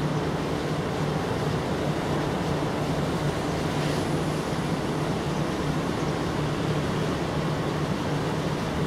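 Steady background noise: a constant low hum under an even hiss, with no sound from the kitten.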